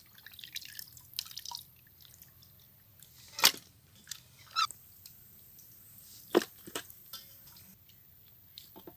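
Wet raw chicken pieces being scooped out by hand after washing: scattered soft wet handling noises and small clicks, with three sharper knocks, likely pieces or a bowl being set down, about three and a half, four and a half and six and a half seconds in.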